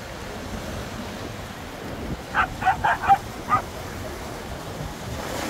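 A dog barking five times in quick succession, short high barks about two seconds in, over the steady wash of wind and surf.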